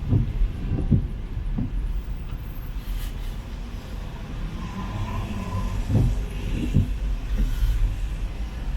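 City street traffic: cars passing with a steady low rumble, with a few short, dull low thumps near the start and again around six to seven seconds in.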